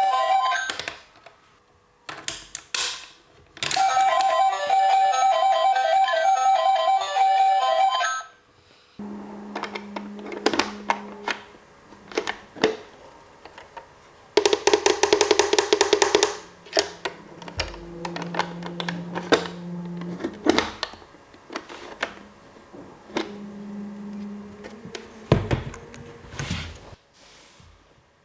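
Toy ATM's electronic jingle playing twice, then plastic clicks of its buttons and mechanism, with short runs of a small motor humming and a quick rattling run of clicks partway through.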